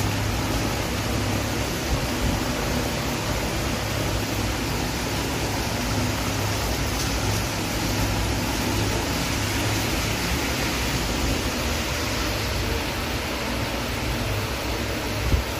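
Heavy rain pouring down: a steady, even hiss with a low hum underneath and one brief knock near the end.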